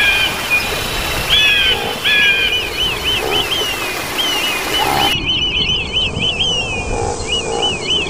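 Short, high chirping animal calls repeated in quick runs over a steady background hiss; the hiss drops away abruptly about five seconds in while the chirping carries on.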